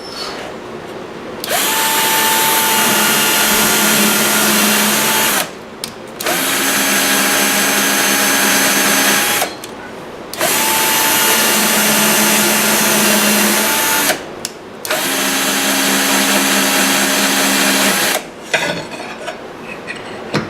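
Handheld power drill driving a spiral-fluted tap through a tapping aid, in four runs of a few seconds each with short pauses between. Each run winds up and winds down in pitch, and the second and fourth runs carry a different tone from the first and third.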